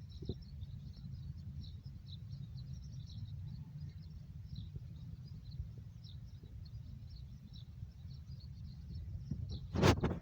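Many faint, short bird chirps scattered throughout over a steady low rumble, with one brief, loud sound near the end.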